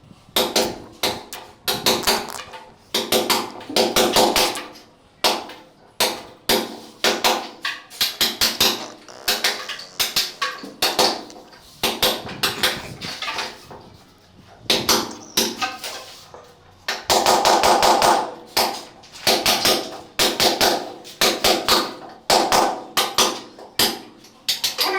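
Repeated hammer blows, struck in quick runs with short pauses between.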